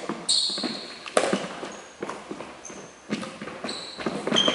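Badminton rally: racket strings striking the shuttlecock about once a second, each hit sharp and echoing in a large sports hall, with short sneaker squeaks and footfalls on the wooden court floor between hits.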